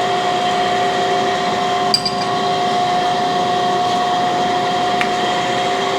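Cam grinding machine running with a steady hum and two held tones over an even rushing noise, with a faint click about two seconds in.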